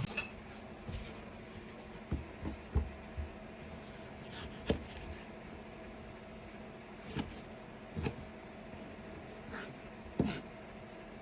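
Scattered light knocks and taps of kitchen things being handled, a few close together about two seconds in and the rest spread out, over a faint steady hum.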